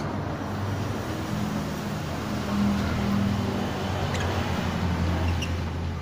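Low steady motor hum, the loudest sound, with a sharp lovebird chirp right at the start and a couple of faint short chirps about four and five seconds in.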